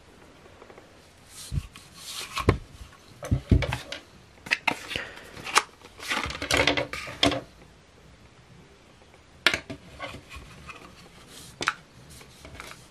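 Hands handling an Anker PowerCore Essential 20000 power bank, its mesh pouch and cardboard box parts: irregular rubbing and rustling with a few sharp knocks, busiest in the first half, then single clicks near the end.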